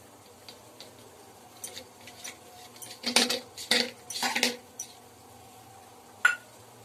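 Metal spoon clinking and scraping against a small steel cup and a plate while thick coconut burfi mixture is scooped out and spread. A few light taps come first, then three louder clatters in the middle, and one sharp clink near the end.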